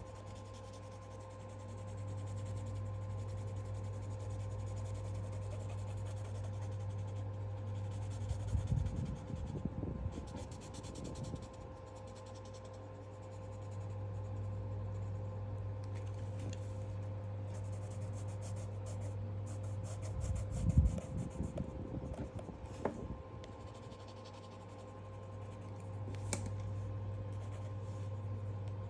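Coloured pencil scratching and rubbing on sketchbook paper in short spells of strokes, over a steady low hum.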